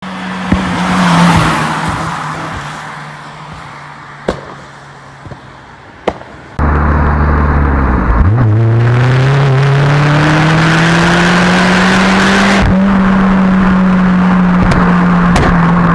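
VW Golf Mk4 1.8T turbocharged four-cylinder, remapped for pops and bangs. The engine swells and dies away with a few sharp exhaust cracks. Then, about six and a half seconds in, it is suddenly much louder and steady, its pitch rising smoothly for a few seconds and then holding, with more sharp cracks near the end.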